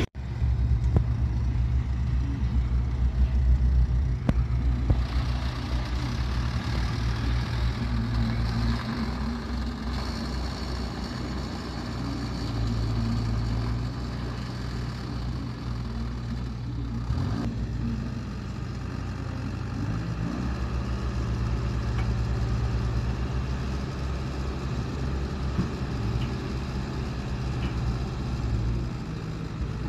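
Diesel engine of a small tipper truck running steadily at low revs, its note shifting partway through as the truck reverses and raises its bed to tip a load of soil.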